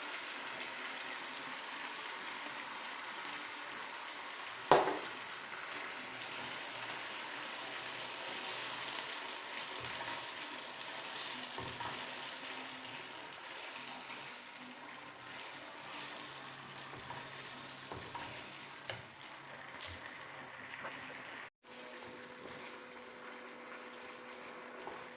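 Food sizzling in a hot pan while it is stirred, with one sharp clank of a utensil against the pan about five seconds in and a few lighter knocks later. After a brief dropout near the end the sizzle is much fainter, under a low steady hum.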